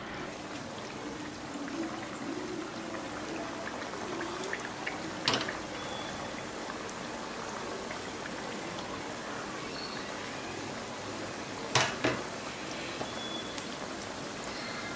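Badusha dough balls deep-frying in sesame oil kept at medium heat, giving a steady bubbling sizzle. A sharp click sounds about five seconds in, and two louder clicks come close together near the twelve-second mark.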